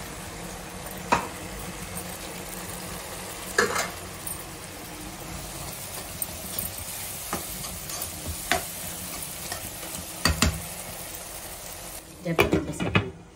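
Soya chunk curry simmering and sizzling in a coated pan while a spatula stirs it, with a few sharp knocks of the spatula against the pan. Near the end a glass lid clatters onto the pan.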